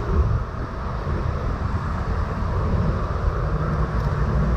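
Wind rumbling on the microphone over steady road traffic noise, with a low steady hum joining about three seconds in.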